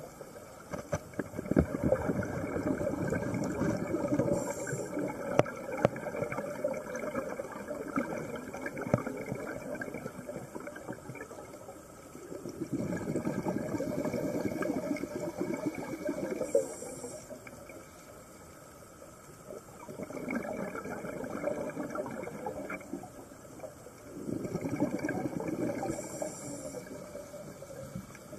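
Water bubbling and gurgling underwater, swelling and fading in surges a few seconds long, with brief hisses now and then.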